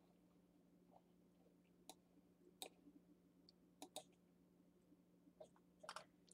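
Near silence with a handful of faint computer mouse clicks spread over a few seconds, over a low steady electrical hum.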